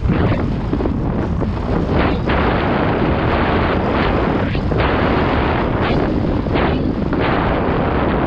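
Heavy wind buffeting on the GoPro's microphone mixed with the rumble of a mountain bike riding fast down a dirt trail, a dense steady noise with a few brief dips.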